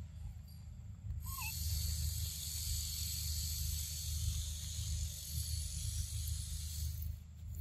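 Outdoor ambience: a constant low rumble under a steady high hiss. The hiss comes in about a second in and drops out near the end. A single short chirp sounds just after the hiss starts.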